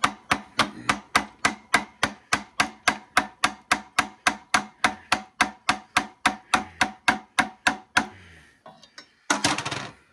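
Hammer tapping rapidly and evenly on the end of a screwdriver, about four to five blows a second, driving the blade in between glue-bound copper windings of a large generator stator. The blows stop about eight seconds in, and a short clatter follows near the end.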